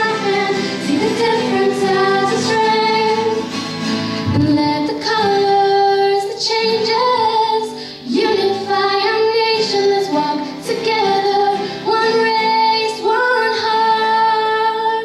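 Two girls singing a slow pop song into microphones, with strummed acoustic guitars behind them and long held notes. These are the song's closing lines, and the sound falls away at the end.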